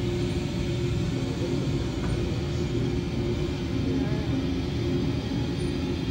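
A steady low rumbling drone with a few held low tones, from the performance's sound design.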